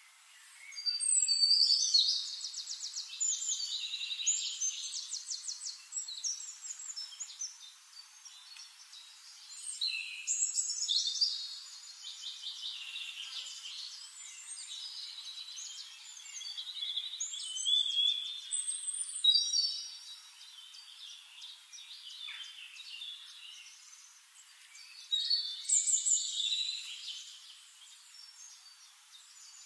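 A songbird singing in phrases of fast high trills and chirps, loudest in four bursts several seconds apart, with softer chirping in between.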